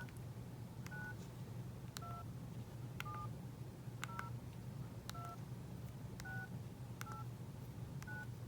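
Nokia 8600 Luna keypad keys pressed one at a time, about one a second. Each press gives a short click and a brief two-tone keypad beep as a service code is keyed in to check the phone's life timer. A steady low hum runs underneath.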